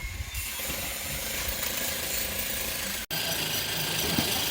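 Steel hand trowels scraping over a wet concrete slab in final smoothing, a steady rasping, ratchet-like noise that cuts out for an instant about three seconds in.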